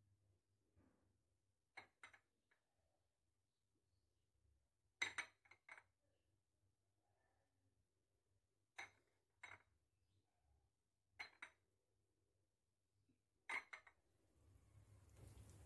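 Quiet clicks and clinks of olives and fingertips against ceramic dishes as olives are picked from a small ceramic bowl and set into an earthenware tajine, in about five short clusters of two or three clicks with near silence between.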